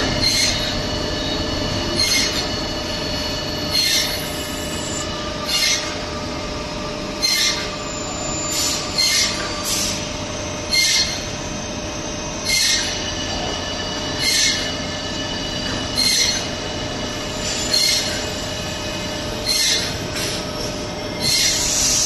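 CNC machine cutting metal: a steady metallic whine with short hissing bursts that recur about every one and a half to two seconds.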